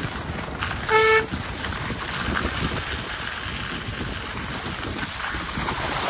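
A car horn gives one short toot about a second in, over the steady road noise of tyres rolling along a wet, muddy dirt track.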